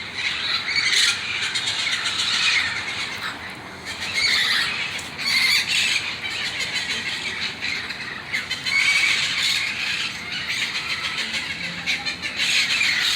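Large flock of feral parrots squawking and screeching together, many harsh calls overlapping, the din swelling and easing in waves.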